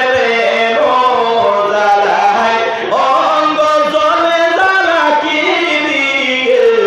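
A man's voice singing a melodic religious chant, holding long notes that glide slowly in pitch, sung into a microphone.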